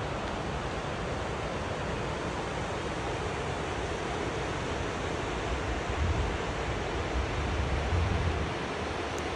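Waterfall rushing, a steady even hiss of falling water, with a stronger low rumble in two stretches about six and eight seconds in.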